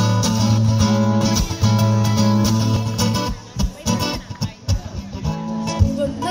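Live acoustic guitars playing an instrumental intro: strummed chords over sustained low notes, thinning to sparser plucked notes and percussive taps a little past halfway, then filling out again.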